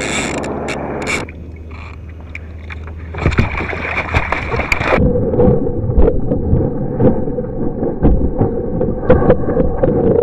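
Hooked shark thrashing at the surface beside a kayak: rapid, irregular splashing from about three seconds in, with a steady hum underneath in the second half.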